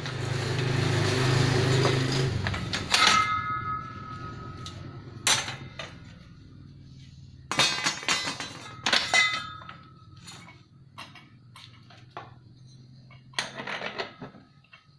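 Steel clanks and knocks with short metallic ringing from a homemade hand-operated sheet-metal rolling machine as a rolled steel band is worked off its rollers and the gear end is handled. A scraping rush in the first two seconds, then single clanks, a quick cluster of clanks in the middle, and a few more near the end.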